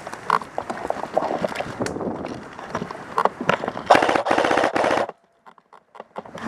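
Airsoft guns firing: scattered single shots, then a rapid full-auto burst lasting about a second from around four seconds in, which then cuts off suddenly.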